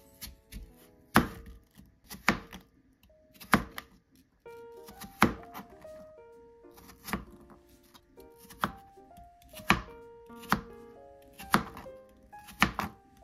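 Kitchen knife slicing a peeled apple into wedges, each cut ending in a sharp knock of the blade on the cutting board, about once a second, with background music.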